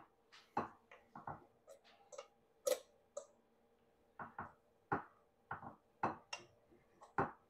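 Fork tapping and scraping against a saucepan as cooked ramen noodles are pushed out into a bowl: faint, irregular light clicks, about a dozen or more, with no steady rhythm.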